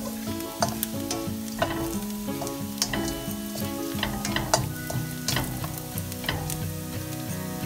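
Shallots, garlic and anchovies sizzling in hot oil in a steel wok, with a spatula scraping and knocking against the pan about once or twice a second as they are stir-fried.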